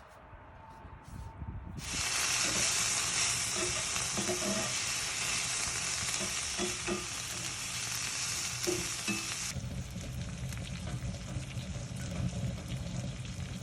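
Food frying and sizzling on a wood stove, starting about two seconds in, with a few short scrapes of stirring. The sizzle grows softer about three-quarters of the way through.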